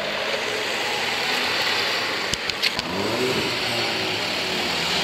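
Modified car engine revving as it pulls away, with a few sharp exhaust cracks about two and a half seconds in, then the engine note rising.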